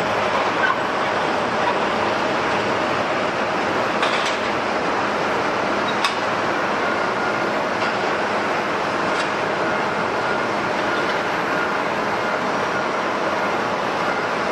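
Jet airliner engines running: a steady, loud rushing noise with a faint whine, and a couple of brief clicks partway through.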